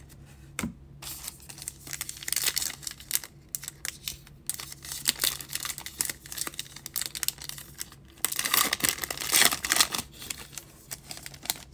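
Foil wrapper of a baseball trading-card pack being torn open and crinkled by hand: a run of sharp crackles, with a louder, denser stretch about eight to ten seconds in.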